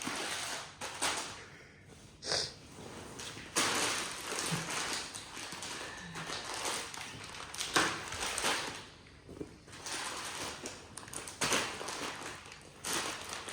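Plastic bags of sunflower seeds being handled: rustling and crinkling in repeated bursts of up to about a second, with a few light taps.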